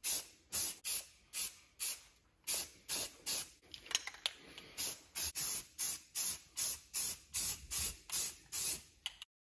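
Aerosol can of spray primer hissing in short bursts, about two a second, as it is sprayed in quick passes. The bursts stop abruptly near the end.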